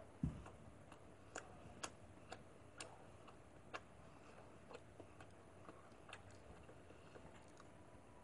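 Faint clicks about twice a second, with a few skipped, over near-quiet room tone, and one soft low thump about a quarter second in.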